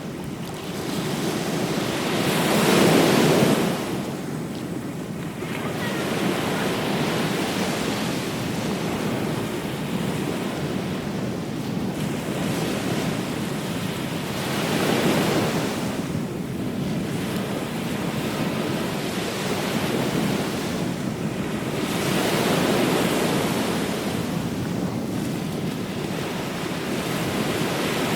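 Ocean surf on a beach: waves breaking and washing in and out in slow swells. The loudest wave breaks about three seconds in, and smaller ones swell about halfway through and again later.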